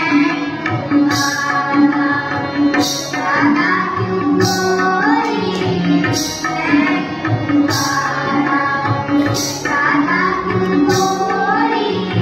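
Live Indian devotional song: harmonium melody with a steady tabla beat, and voices singing along. A short, bright high hit recurs about every second and a half.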